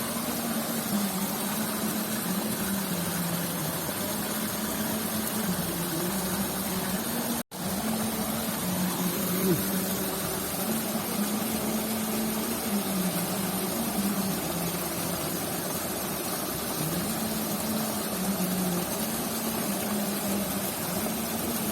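An engine running steadily, its hum stepping slightly up and down in pitch, over a steady hiss. The sound drops out completely for an instant about seven and a half seconds in.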